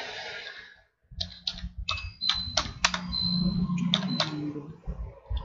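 Typing on a computer keyboard: a run of about a dozen uneven keystrokes, starting about a second in.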